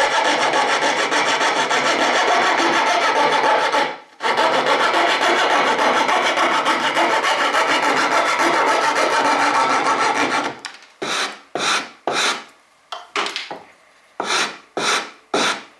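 Coping saw rasping through wood in fast, continuous strokes, with a short pause about four seconds in. A little past halfway it gives way to slower, separate strokes on the wood, about two a second.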